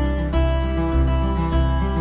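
Background music with a bass line, its notes changing about every half second.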